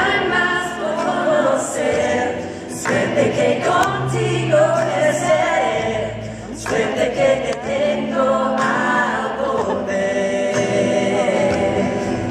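Male and female voices singing together in close harmony over a strummed acoustic guitar, with cello and double bass beneath.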